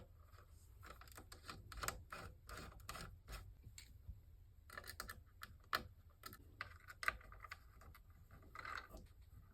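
Faint, irregular small clicks and light scratching of a screwdriver turning and seating the tiny M.2 screw that holds an NVMe SSD onto a motherboard.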